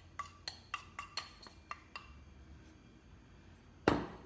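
A utensil tapping on a bowl or pan as shredded coconut is knocked out for the filling: a quick run of ringing taps, about four a second, for the first two seconds. One louder thump comes near the end.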